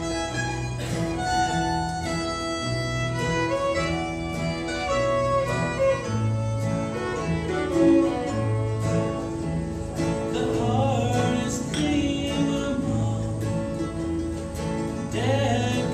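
Bluegrass band playing live: fiddle carrying the melody over strummed acoustic guitar with alternating bass notes, with mandolin in the mix.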